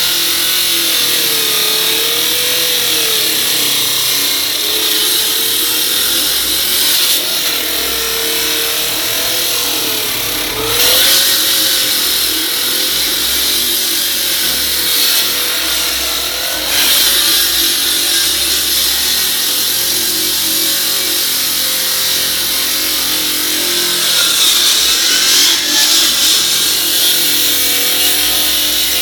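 Engine-driven concrete saw cutting a concrete slab: a steady engine drone whose pitch wavers slightly as the load changes, under a loud hiss of the blade grinding through the concrete.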